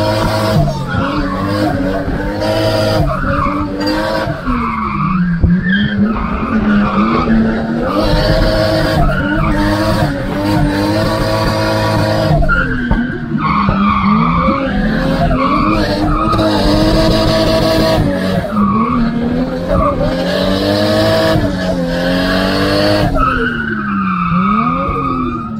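Drift car's engine heard from inside the cabin, revving hard, its note dropping and climbing again every few seconds as the car is thrown through the turns, over steady tyre noise from the slide.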